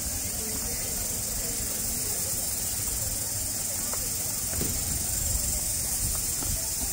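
Steady high-pitched insect chorus, an even hiss held without a break, over faint voices of people chatting.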